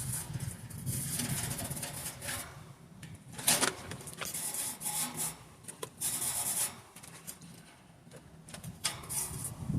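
Scrubbing a wire bird cage to loosen dried droppings and debris, a run of irregular rasping strokes with the loudest about three and a half seconds in.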